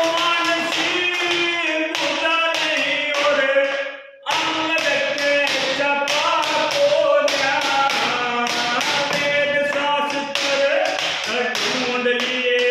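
A man singing a Haryanvi ragni unaccompanied in long held notes, beating time with his hand on a wooden desk at about three taps a second. Voice and taps break off briefly about four seconds in.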